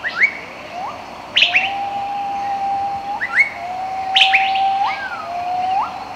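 Birds calling: three long, level whistles that each end in a sharp upward sweep, mixed with shorter, higher chirps that rise quickly.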